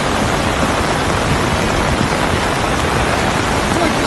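Loud, steady rush of water in flood conditions, cutting off suddenly at the end.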